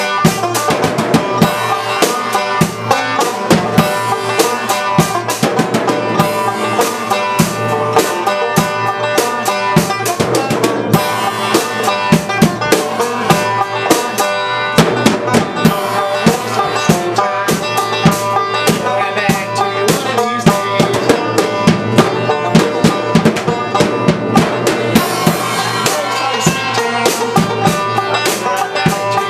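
A banjo and a drum kit playing together, with a fast, busy stream of drum hits over the banjo's plucked notes.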